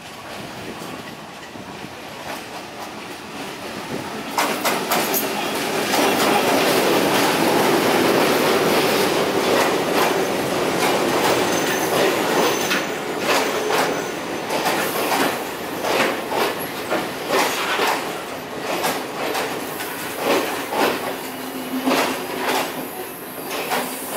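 Class M4 diesel locomotive hauling a passenger train comes up and passes close by, getting loud about four seconds in. Then its carriages roll past, the wheels clacking over the rail joints, the clacks coming further apart as the train slows.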